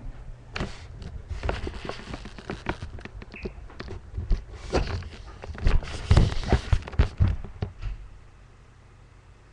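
Irregular knocks and clattering thumps, densest and loudest about six seconds in. They die away near the end, leaving a low steady hum.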